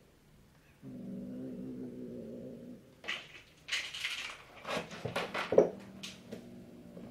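Young tabby cat's threat display: a low, drawn-out growl, then several sharp hisses and spits as it swats at the other kitten through the pen bars, the last and loudest about five and a half seconds in, then the growl starts again. It is a warning after coming too close.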